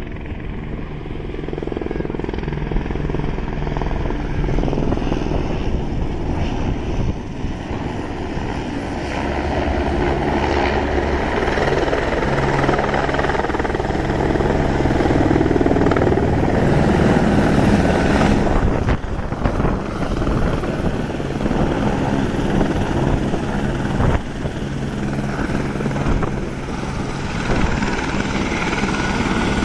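Light helicopter approaching and landing, its rotor beating steadily and growing louder toward the middle, then running on the pad with its rotor still turning.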